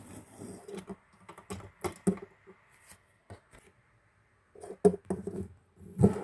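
Hard plastic Lego pieces tapping and clicking in irregular clusters, as a minifigure is moved across the Lego set; the loudest knocks come near the end.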